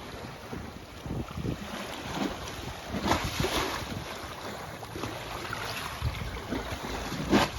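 Wind buffeting the microphone in uneven low gusts, with a few short, sharper noises about three seconds in and again near the end.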